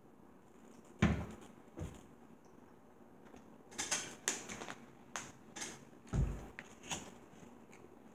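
Table-side eating noises: a few dull thumps against the table, loudest about a second in and again near six seconds, with sharp clicks and crackles from a plastic water bottle and forks tapping on paper plates.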